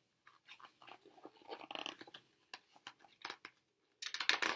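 Paper rustling and crackling as the pages of a hardcover picture book are handled and turned, with a louder rustle near the end.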